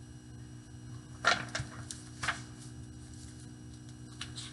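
A few short clicks and taps of a picture book being handled, the loudest about a second in, over a steady low hum.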